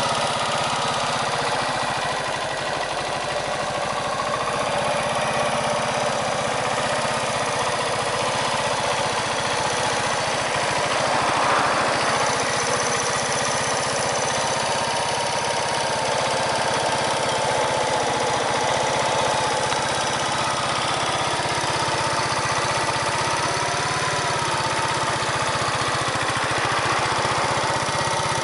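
Yamaha SR125's single-cylinder four-stroke engine idling steadily, briefly a little louder about a third of the way through.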